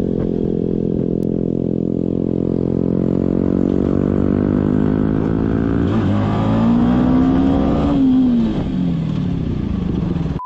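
Engine of a SYM NH T125, a 125 cc single-cylinder motorcycle, running steadily under way. About six seconds in its pitch climbs as it revs up, then falls away after about eight seconds.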